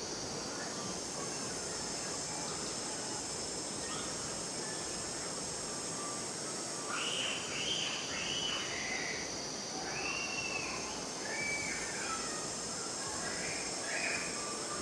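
A steady high-pitched insect drone, with a run of short, high calls that bend up and down starting about halfway through, several in quick succession.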